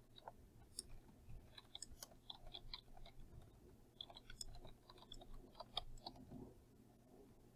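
Faint computer keyboard typing: a run of quick, irregular key clicks that stops about six seconds in.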